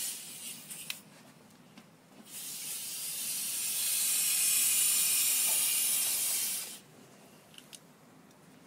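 Butane lighter-refill can spraying gas into a rubber balloon: a brief hiss at the start, then a steady hiss of about four and a half seconds beginning about two seconds in.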